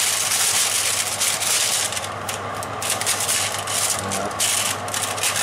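Baking paper rustling and scraping as it is smoothed flat over an oven's wire rack with an oven mitt: a continuous rough rustle for about two seconds, then shorter bursts of crinkling. A steady low hum runs under it from the running oven.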